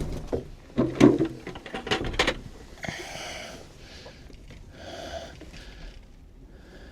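Sharp knocks and clatter of hands working among eggs and nest boxes in a chicken coop, loudest about a second in, followed by three short raspy, hissing sounds about two seconds apart.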